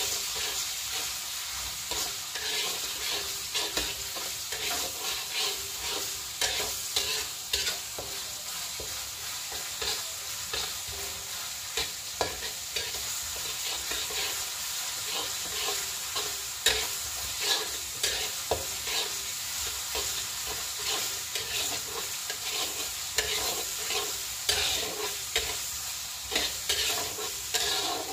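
Ground spice paste sizzling in hot oil in a wok, stirred with a metal spatula that scrapes and taps against the pan in irregular clicks over a steady hiss.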